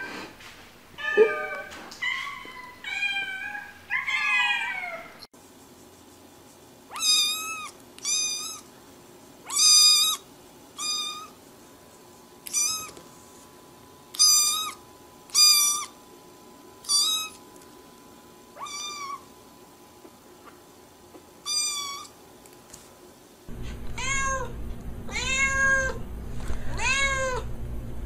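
Domestic cats meowing: several overlapping meows at different pitches at first, then a kitten's high-pitched meows repeated about a dozen times, a second or so apart. Near the end a lower-pitched cat meows over and over above a steady low hum.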